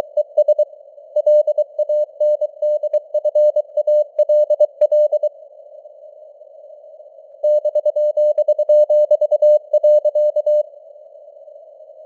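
Morse code keyed at about 23 words per minute as a single steady tone, over a narrow band of simulated radio hiss. The keying pauses for about two seconds midway, resumes, then stops near the end, leaving only the hiss.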